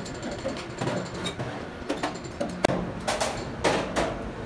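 Irregular metal clunks and scrapes of hand tools being worked against an inline diesel injection pump's housing, with several knocks close together in the second half.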